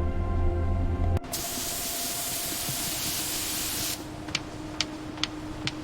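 Background music cuts off about a second in and gives way to a loud steady hiss lasting a couple of seconds. The hiss then drops away, leaving a faint steady hum and four sharp clicks about half a second apart.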